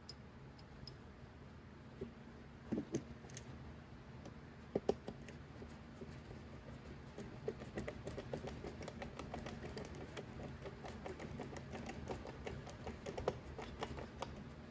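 Hand work on small metal cabinet hinge hardware: a few light taps and knocks, then from about halfway a long run of rapid small clicks as the hinge part is worked out of the cabinet door.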